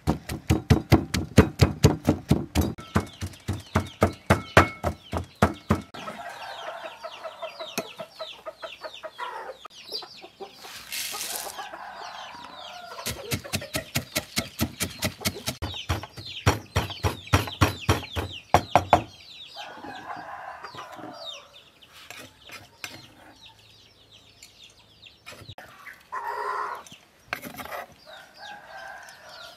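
Wooden pestle pounding garlic, shallots and then peanuts in a wooden mortar, in two spells of steady strikes at about four a second. Chickens cluck in the pauses between the spells.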